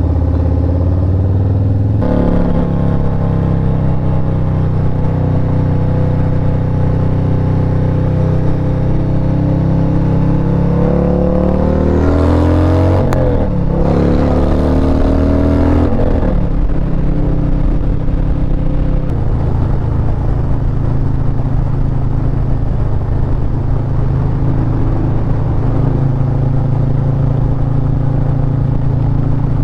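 Harley-Davidson Road Glide ST's Milwaukee-Eight 117 V-twin running on the move. Its pitch climbs under acceleration near the middle and drops sharply twice as it shifts gear, then settles into a steady cruise.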